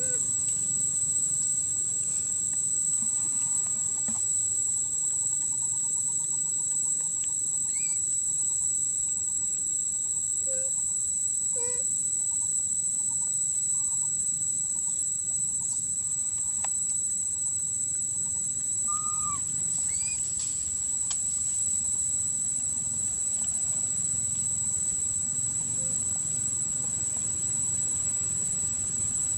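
Steady high-pitched insect drone, with a few short chirps scattered through it over a low rumble.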